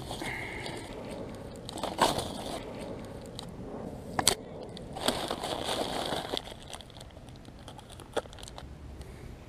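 Plastic bait packets and zip bags crinkling and rustling as they are handled, with a few sharp clicks along the way, the strongest about two and four seconds in.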